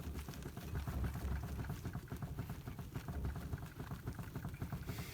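Rapid, continuous knocking from a Renault Kangoo 2's steering tie rods and tie rod ends as the front wheel is rocked back and forth by hand: play in the joints, the sign of worn tie rods or tie rod ends.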